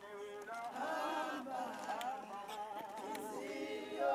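A group of people singing a hymn together as they walk in procession, men's and women's voices in unison, with no instruments.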